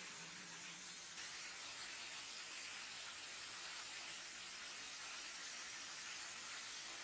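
Steady hiss and splash of many fountain water jets spraying up from a paved plaza and falling back onto it, growing louder about a second in.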